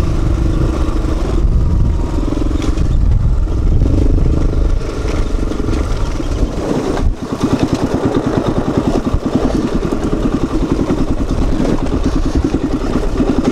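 A sport ATV's engine running as the quad is ridden over a rocky trail. About halfway through the sound drops for an instant, and the engine then settles into an even, rapid pulsing beat.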